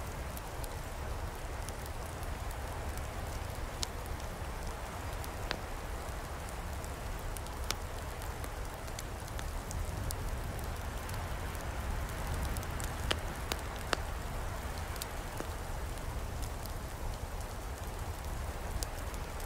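Open wood campfire crackling, a steady hiss with scattered sharp pops, over a low steady rumble.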